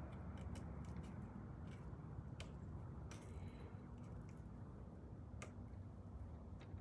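Faint scattered clicks and light taps from handling the wires of an exit sign, about six in all, spread irregularly over a low steady hum.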